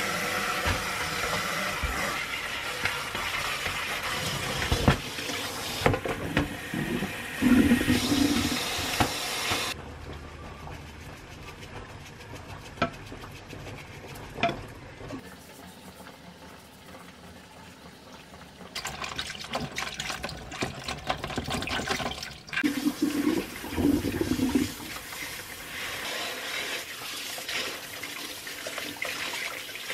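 Kitchen tap running into a plastic basin in a stainless-steel sink as vegetables are rinsed under the stream. The rushing water goes quieter for several seconds midway, then runs strongly again with some splashing.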